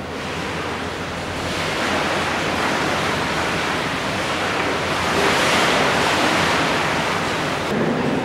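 Waves surging and washing beneath the concrete deck: a steady rushing that swells about two seconds in and is loudest around the middle.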